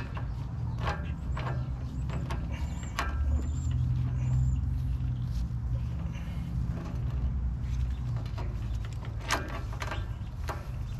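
Short metal clicks and rattles of a steel roller chain being handled and fitted over the sprockets of a tiller's chain case, over a steady low rumble.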